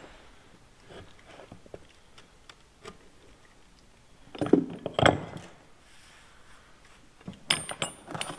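Metal clunks, knocks and clinks as the heavy steel plates of a tank's triple-plate clutch are handled and worked loose on a bench, with two louder clunks about halfway and a quick run of sharp clinks near the end.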